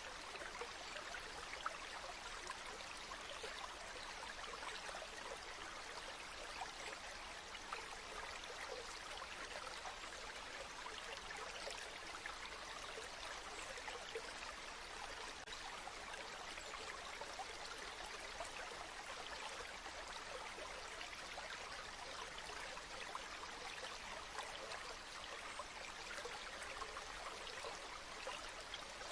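Faint, steady running water with a fine, even trickle.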